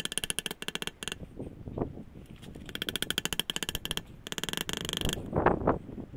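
Hand hammer beating hot rebar flat on a metal block while forging a knife blade: fast, even runs of ringing metal-on-metal blows, about ten a second, in several bursts. A louder rushing noise swells briefly around five and a half seconds in.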